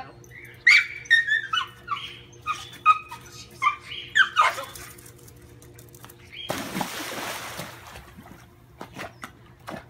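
A small dog whining and yelping in a quick series of high cries for the first few seconds, then a loud burst of splashing water about two-thirds of the way through.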